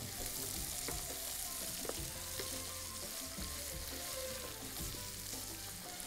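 Sliced onions sizzling in hot oil in a frying pan while being stirred with wooden spoons. The utensils knock against the pan a few times.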